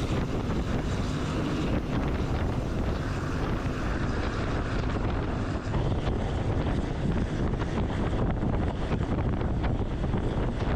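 Wind rushing over the microphone with steady road and engine noise from a car driving along. No pauses and no single event stands out.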